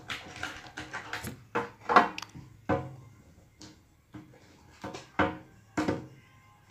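Slime being squeezed and stretched by hand, giving irregular squishes and pops, the loudest about two seconds in and two more near the end.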